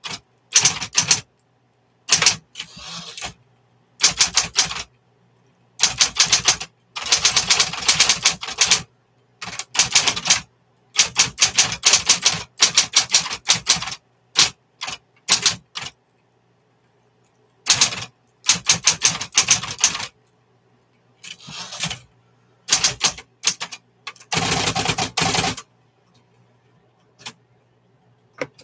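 1960s Smith Corona electric typewriter being typed on in quick bursts of rapid key strikes, with short pauses between the bursts.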